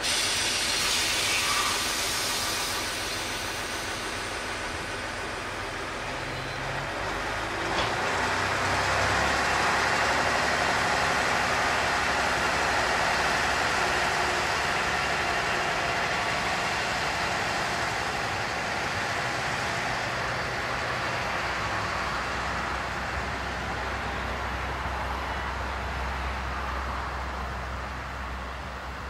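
DB class 628.2 diesel multiple unit pulling away: its diesel engine runs up under load, with a single click about eight seconds in, and the sound fades near the end as the railcar draws away.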